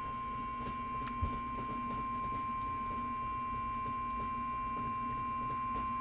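NOAA Weather Radio warning alarm tone: a single steady, high beep near 1 kHz, held without a break. It is the attention signal that comes just before a new warning message is read.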